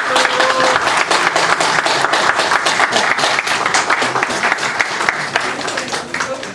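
Audience applauding with dense clapping that thins out and fades near the end.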